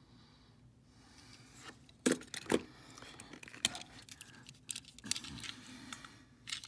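Light clicks and rattles of small die-cast model cars being handled and swapped in and out of a plastic storage case, a handful of sharp clicks spread over a few seconds.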